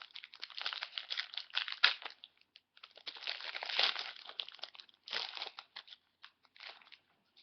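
A hockey card pack's wrapper being torn open and crinkled by hand: a run of irregular crackles and rustles that thins out near the end.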